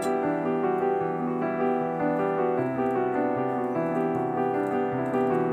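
Background piano music with a gentle, steady flow of notes; a lower bass note comes in about halfway through.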